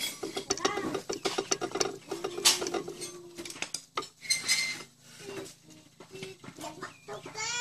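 Metal clinking and tapping as a small DC motor is handled and fitted against a steel motorcycle sprocket. Pitched calls sound in the background, one held for about a second near the middle and a rising one near the end.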